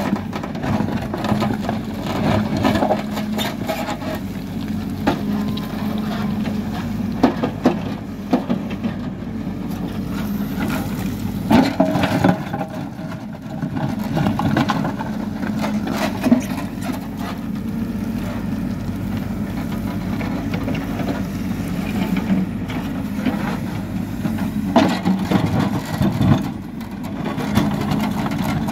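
Hidromek Supra backhoe loader's diesel engine running steadily while its backhoe digs a trench, with scattered clunks and scrapes of stones and soil against the bucket.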